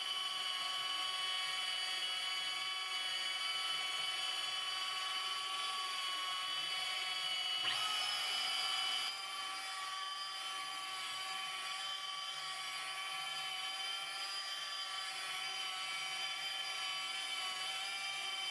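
Electric rotary buffer running at low speed while polishing a car's paint, a steady whine. About eight seconds in there is a short click, and the whine then drops a little in loudness and shifts in pitch.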